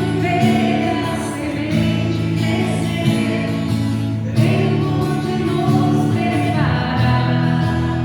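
Christian worship music: a group of voices singing over steady instrumental backing.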